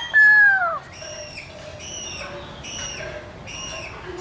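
Cockatoo calling: one loud whistled call that falls in pitch, then short repeated calls about twice a second.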